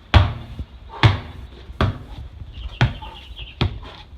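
A basketball being dribbled on a hard court: five low, thudding bounces, about one a second.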